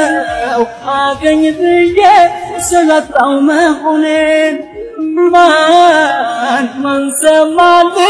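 A song: a voice singing a slow melody with held, wavering notes over a steady held accompaniment tone.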